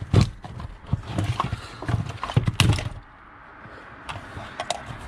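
Plastic parts and wiring being handled and pushed around in a tight space: a quick run of irregular clicks, knocks and rattles for about three seconds, then quieter with a couple of light clicks near the end.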